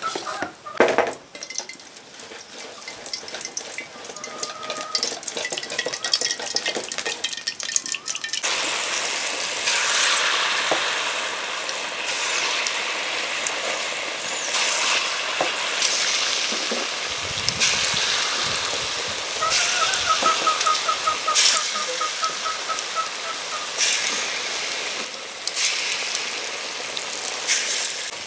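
Thick batter squelching as a hand mixes it in a steel bowl. About eight seconds in, a steady sizzle as taler bora (palm-fruit fritters) deep-fry in hot oil in a wok, with more batter dropped in by hand.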